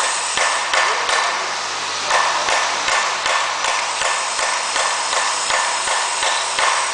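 A machine running with a steady rushing whir and a regular knock or tick about three times a second.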